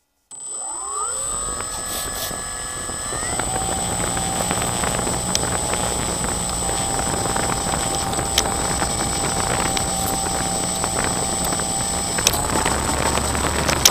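CAP 232 model airplane's motor and propeller, heard from on board. It spins up with a rising whine in the first second, runs at a steady whine, then rises in pitch again near the end as the throttle opens for the takeoff roll.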